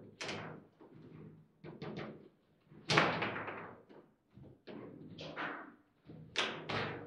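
Table football (foosball) in play: a quick string of sharp knocks and clacks as the ball is struck by the figures and rods bang in the table. The loudest hit comes about three seconds in.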